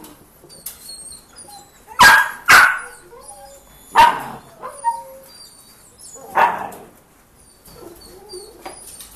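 A dog barking: a quick pair of loud barks about two seconds in, then single barks a couple of seconds apart, with quieter yips between.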